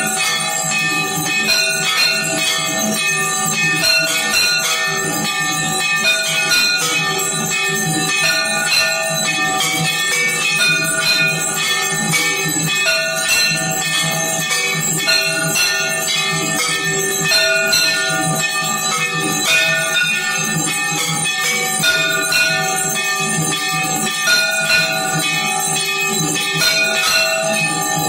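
Temple bells rung continuously during aarti, rapid strikes overlapping into a dense, steady metallic clanging.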